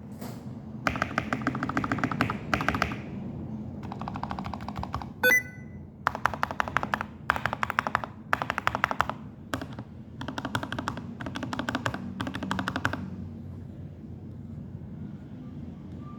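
Fast typing in several bursts on a Feker FK84T mechanical keyboard with lubed Gateron Milky Yellow linear switches and foam-dampened case, a dense run of clacks. About five seconds in there is one sharp, louder click with a short ring. The typing stops a few seconds before the end.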